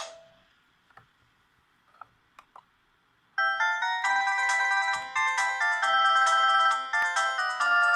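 Polyphonic ringtones from an Audiovox CDM 8400 phone: the last note of one tune dies away, a few faint clicks follow in a short quiet gap, then the next ringtone starts about three and a half seconds in, a bright many-note electronic melody.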